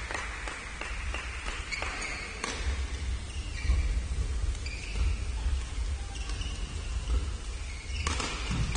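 Badminton doubles rally: sharp clicks of rackets striking the shuttlecock, and short high squeaks of court shoes on the hall floor, over a steady low hum.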